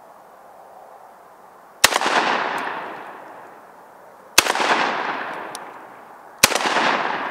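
Three single shots from a VEPR-12 semi-automatic 12-gauge shotgun, two to three seconds apart. Each is a sharp report followed by a long echo that dies away over about a second and a half.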